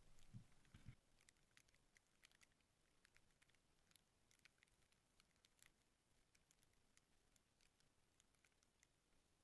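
Near silence, with faint, irregular light ticks and pattering throughout and two soft low thumps about half a second in.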